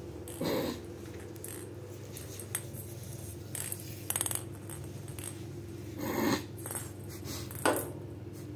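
A handful of short rustles and knocks, the sharpest about half a second in, near the middle and near the end, over a steady low hum.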